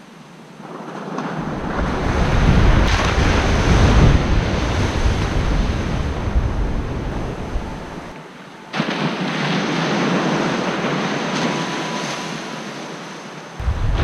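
Ocean surf breaking and washing up a sandy beach, with wind rumbling on the microphone. The wash swells over the first couple of seconds and fades, then returns abruptly about nine seconds in and slowly dies away.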